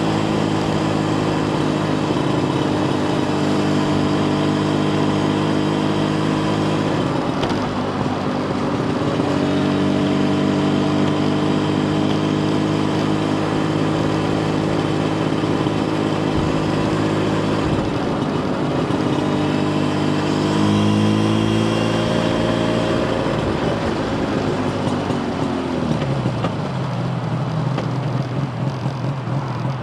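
Yamaha TZR250 1KT's two-stroke parallel-twin engine running under way at a steady pitch, the note breaking off and picking up again twice. Near the end the revs climb briefly, then fall away to a low steady idle.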